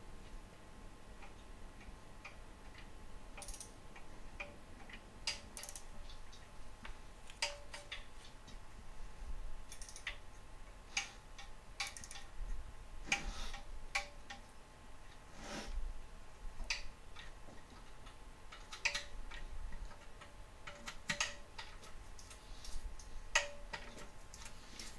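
Torque wrench ratcheting in short, irregular runs of clicks with pauses between, as intake manifold bolts are tightened to 89 inch-pounds on the second torque stage.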